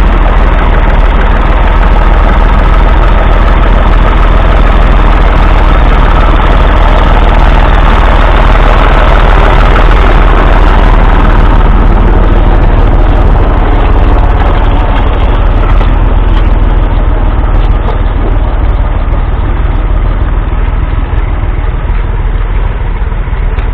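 A Massey Ferguson 135's 2.5-litre three-cylinder diesel engine running steadily under load as the tractor pulls a two-furrow mounted plough. It gets a little quieter over the last several seconds as the tractor draws away.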